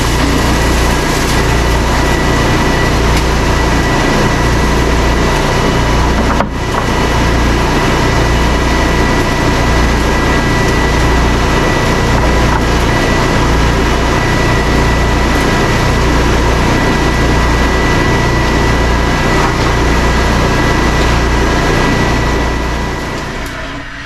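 Wood-Mizer band sawmill and Baker edger running together: a steady machine drone with a thin, constant high whine. It drops out for an instant about six seconds in and fades away near the end.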